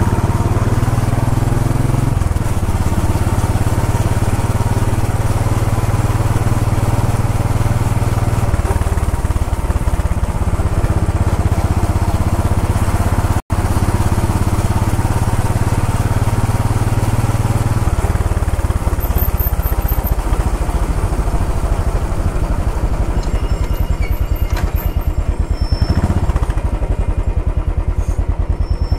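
Royal Enfield Bullet 500 EFI's single-cylinder engine running steadily under way, its note changing a few times. The sound drops out for an instant about halfway through.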